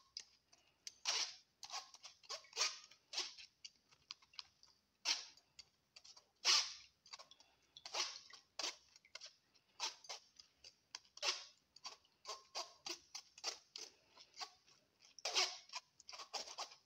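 A spoon scraping and pressing boiled grape pulp against a metal mesh sieve to press out the juice, in short irregular strokes about once or twice a second.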